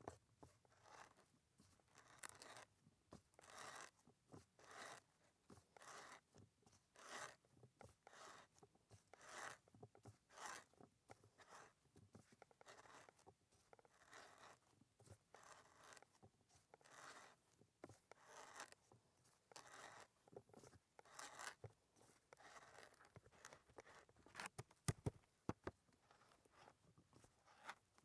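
Hand wood auger boring into a log round: a faint scraping crunch of the bit cutting wood with each turn of the T-handle, about one a second, with a few sharper clicks near the end.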